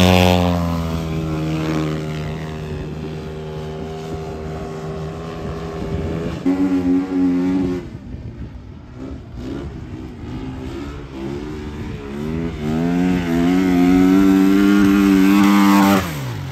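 Racing motorcycle engines running on a dirt oval: a speedway bike's single-cylinder engine loud at first and easing off, then after about six seconds a flat-track bike, its revs climbing and holding high before dropping away suddenly near the end.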